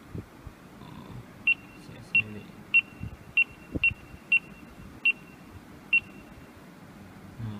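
Digital azan (prayer-compass) wristwatch giving eight short, high key beeps, one for each button press as its location setting is stepped through. Faint clicks of the watch buttons between the beeps.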